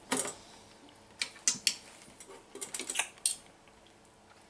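Scattered light clinks and taps of metal utensils against a plate, half a dozen or so spread over the first three seconds.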